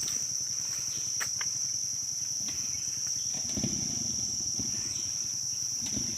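Steady high-pitched insect chorus, with a few faint low knocks near the middle.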